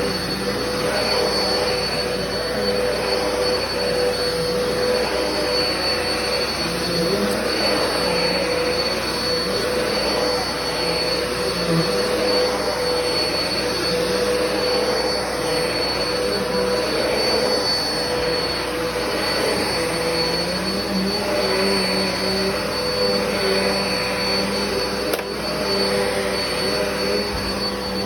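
Black & Decker vacuum cleaner running steadily: a constant motor whine over rushing air.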